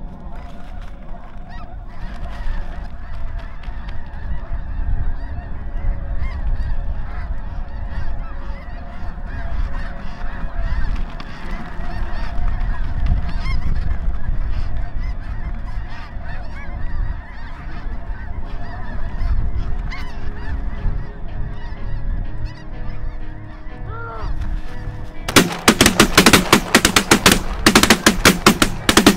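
A large flock of snow geese calls overhead in a dense, continuous clamour of honking. About 25 seconds in, a rapid volley of loud, sharp cracks breaks out as the hunters open fire with shotguns.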